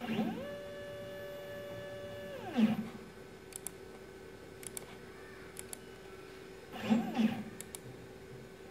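Mini CNC machine's stepper motors moving the spindle carriage. A whine rises, holds steady for about two seconds, then falls away, and a second short rise-and-fall comes near the end. A steady hum runs underneath, with a few light ticks between the moves.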